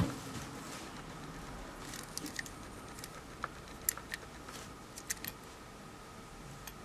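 Faint, scattered small clicks and taps from fingers handling a die-cast N-gauge model railcar as it is turned over.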